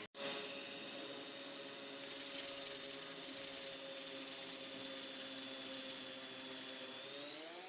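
A steady motor whine with a harsh rubbing, sanding-like scrape laid over it for several seconds, broken by two brief gaps; near the end the whine rises in pitch.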